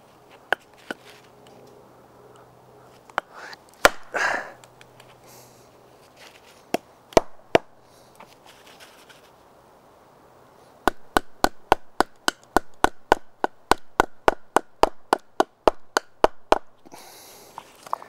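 A wooden baton knocks on the spine of a Morakniv Robust knife, driving the blade down into the end of a log. There are a few scattered blows at first, then, past the middle, a fast, even run of knocks, about five a second, for several seconds.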